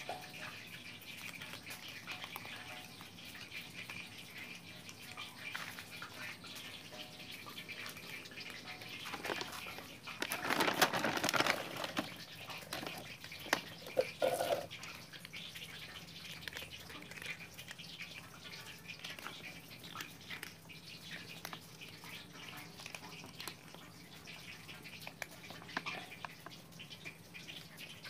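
Several cats eating cat food, with many small clicks and crunches throughout and a louder noisy stretch about ten to twelve seconds in.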